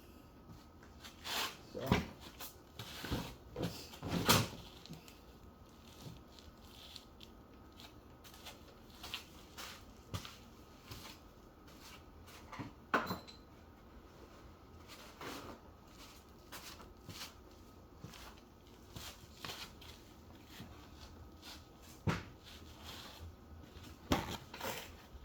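Scattered knocks and clicks of objects being handled and set down, spread irregularly through the stretch, the sharpest a few seconds in, about halfway, and near the end.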